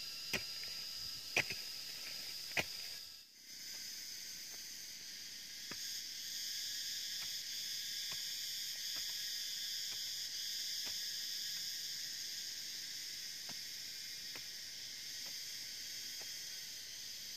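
Steady high-pitched insect chorus, with a few sharp clicks in the first three seconds. From about six seconds in, faint soft knocks come about once a second as a hoe chops into soil.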